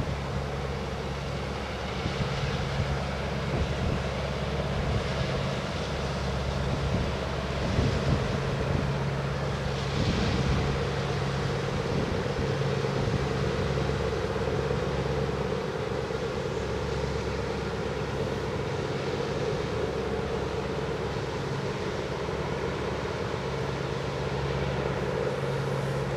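A steady low mechanical drone from distant machinery, with its hum coming and going, mixed with wind noise on the microphone.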